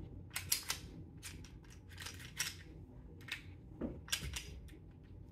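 Pistol being cleared by hand: a scattering of sharp mechanical clicks and clacks from the gun's parts being worked, busiest about four seconds in.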